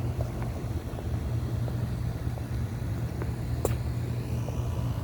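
Steady low mechanical hum, with a few faint clicks on top.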